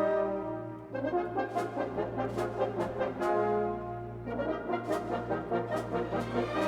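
Instrumental music with brass instruments playing held notes that change about once a second, over a steady low hum.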